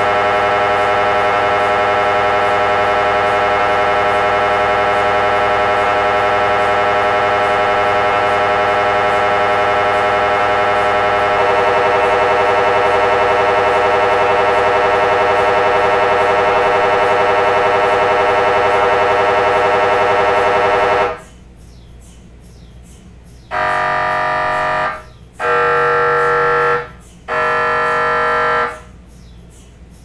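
MRI scanner's gradient coils buzzing during a scan: a loud, steady buzzing drone of many pitches that gets a little louder about eleven seconds in and stops about twenty-one seconds in. It is followed by three separate buzzing pulses of about a second and a half each.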